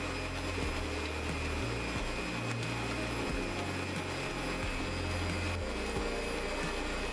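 Two electric kitchen mixers running at once: a stand mixer beating egg yolks and a hand mixer beating cream in a glass bowl, with a steady high whine over the motor noise.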